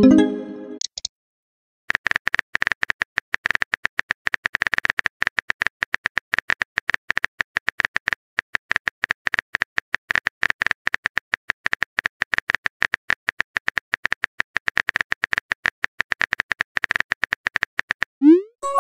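Rapid, continuous phone-keyboard typing clicks from a texting app, many per second, beginning about two seconds in and stopping just before the end. A short message chime opens the run, and a short rising whoosh of a message being sent comes near the end.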